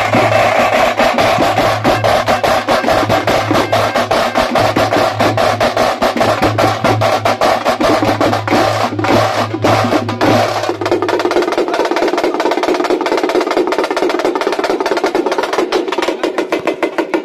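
A street drum band playing fast, dense drumming on drums beaten with sticks, with a wind instrument holding long notes over it. The held note drops to a lower pitch about ten seconds in.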